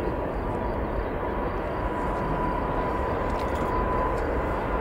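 Boeing 777-300ER's twin GE90-115B turbofan jet engines running on departure: a steady rumble with a held high whine on top, growing slightly louder toward the end.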